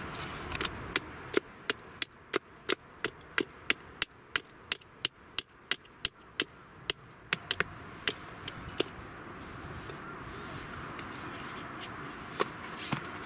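Hatchet blade chopping into a thin wooden stick held on a log chopping block: a run of sharp wooden knocks, about three a second, that stops about nine seconds in, with one more knock near the end.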